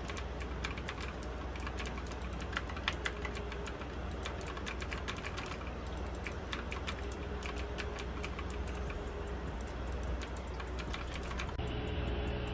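Typing on a Gigaware K28 tenkeyless mechanical keyboard with blue switches: a fast, uneven stream of key clicks.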